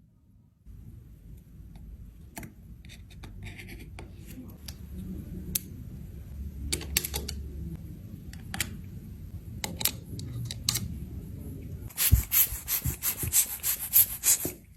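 Rubbing and scraping on an eyeshadow pan, with scattered clicks and taps, then a quick run of sharp, loud taps over the last few seconds.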